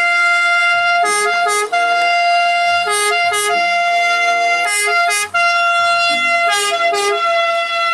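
Italian ambulance siren sounding in two tones: a long held high note broken by a short lower note about every two seconds.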